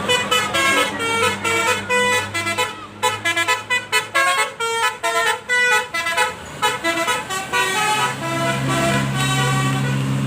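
Indonesian 'basuri' musical bus horn playing a fast tune of short notes that jump up and down in pitch. Near the end the tune gives way to a low steady drone of a passing engine.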